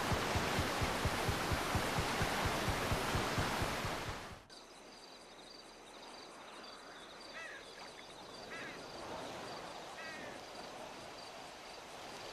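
A loud rushing noise with a fast low pulse, about five beats a second, cuts off abruptly about four seconds in. Quieter outdoor-sounding ambience follows, with a steady high-pitched tone and a few short, separate chirps.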